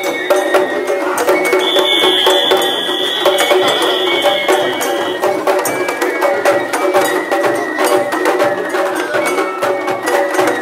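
Japanese festival hayashi music from the float procession: rapid, continuous drum and gong strikes, with a high note held for about three and a half seconds beginning about two seconds in.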